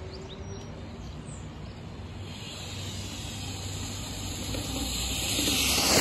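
Brushless-motor Traxxas TRX-4 Sport RC truck approaching fast and passing close by, its motor and tyre noise growing steadily louder from about two seconds in and peaking at the very end.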